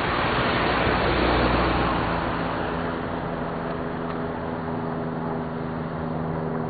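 A motor vehicle engine running steadily, with road noise that swells about a second in and then eases.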